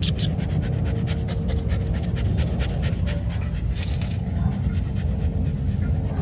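Rottweiler puppy panting fast, several short breaths a second, over a steady low rumble.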